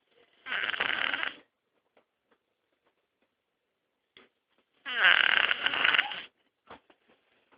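A sleeping person snoring: two snores about four seconds apart, the second longer and louder.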